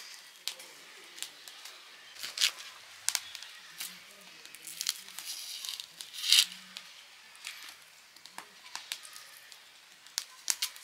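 Dry, papery outer skin of a red onion crackling and tearing as it is peeled off by hand: a string of short crinkles and clicks, loudest about two and a half seconds in and again about six seconds in.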